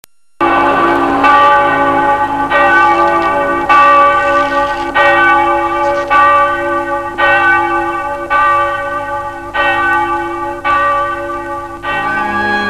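A bell tolling slowly and evenly, about one stroke a second, each stroke ringing on into the next. It starts after a brief moment of silence, and a low held tone joins it near the end.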